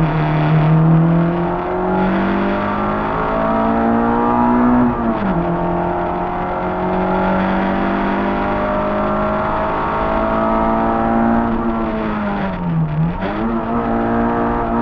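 Peugeot 106 1.3's four-cylinder petrol engine pulling hard under full throttle on a rally stage, heard from inside the cabin, its pitch climbing slowly through the gears. About five seconds in the revs drop sharply at a gear change, and near the end they dip briefly as the driver lifts for a bend, then climb again.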